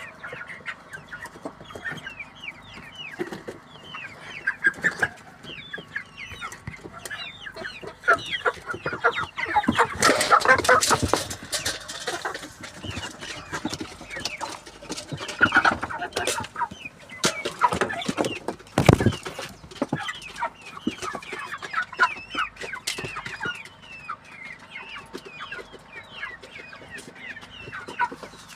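A flock of broiler chickens clucking and peeping steadily, with bursts of sharp clicks from pecking at feed, densest around the ten-second mark. One strong thump comes about nineteen seconds in.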